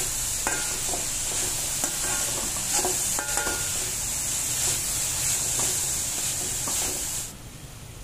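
Metal slotted spatula stirring and scraping shredded vegetables around a hot wok, with irregular clinks of steel on the pan over a steady sizzle. The sizzle cuts off suddenly near the end.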